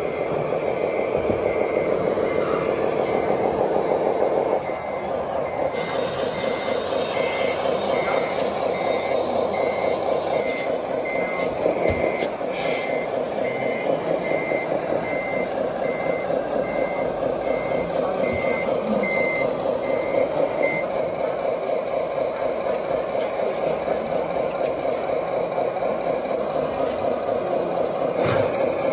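RC truck's sound module sounding a reversing beeper, a steady beep a bit over once a second that stops about two-thirds of the way through, over a simulated diesel truck engine running throughout.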